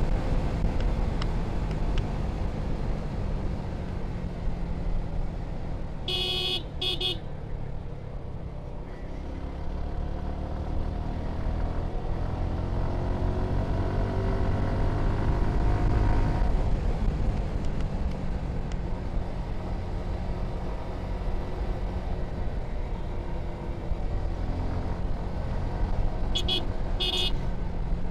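Suzuki Gixxer SF 155's single-cylinder engine with stock exhaust running under way, its pitch climbing midway and easing off again as the throttle is worked. A horn honks twice in quick succession twice: about six seconds in and near the end.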